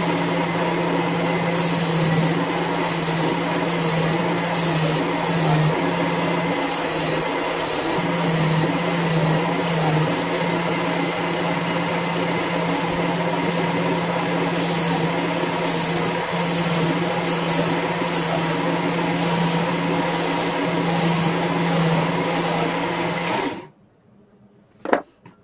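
Work Sharp Ken Onion knife sharpener with the blade grinder attachment, its motor and abrasive belt running steadily while a tanto blade is drawn across the belt, giving a string of short hissing grinds, one per stroke, in two runs. The motor shuts off near the end.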